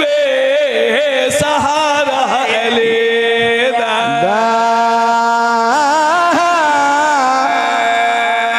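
Men's voices chanting devotional verse without instruments, in long melismatic phrases. The notes waver in ornaments at first; about four seconds in they settle into long held tones, with a swooping rise and a trill near six seconds.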